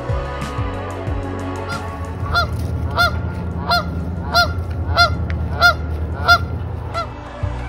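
Canada goose honking over and over at a steady pace, about nine honks, one every two-thirds of a second, starting a couple of seconds in. Soft background music plays underneath.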